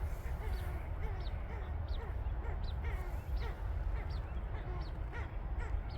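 A chorus of short, duck-like quacking calls from animals, several a second and overlapping, over a steady low rumble.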